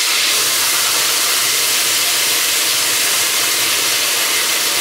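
Lamb shank sizzling in hot oil in a frying pan, a loud, steady, dense hiss right after it goes into the oil.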